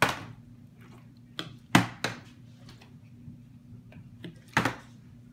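Plastic water bottle with water in it being flipped and landing on a wooden tabletop: a run of sharp thuds, about six, the loudest a little under two seconds in.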